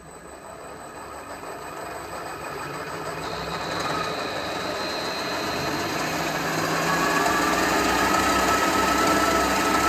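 Milling machine spindle running with a freshly hand-sharpened drill bit, growing louder over the first few seconds and then steady. Past the halfway point a thin steady whine comes in as the bit feeds down and starts drilling into the metal block.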